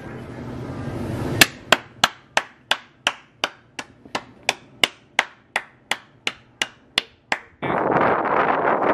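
A person clapping hands in a steady rhythm, about three sharp claps a second for roughly six seconds. Near the end the claps stop and wind buffets the microphone.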